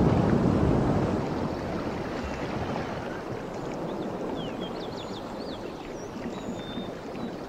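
Outdoor ambience: wind rushing on the microphone, loudest in the first second or so and then settling to a steady rush, with small birds chirping briefly from about halfway through.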